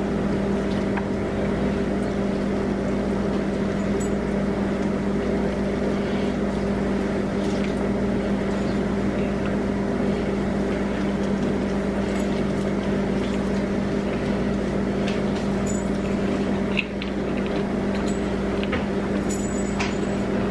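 Steady, unchanging mechanical hum with a low pitched drone, with a few faint clicks of plastic forks and eating sounds over it.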